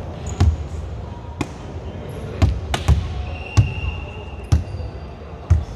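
Volleyball being struck and bouncing on an indoor court floor: sharp thuds about once a second, with a thin high squeak near the middle.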